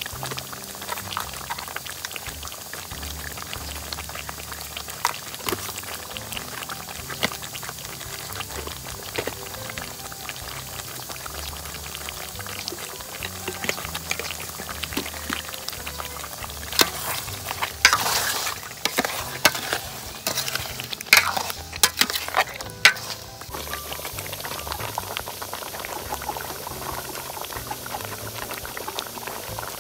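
Thick coconut-milk soup bubbling at a boil in an aluminium pot, a steady stream of small pops and blips. Between about 17 and 23 seconds in comes a run of louder knocks and scrapes.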